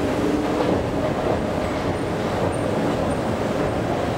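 Thyssen escalator running under a rider: a steady mechanical rumble and hum from the moving steps and drive.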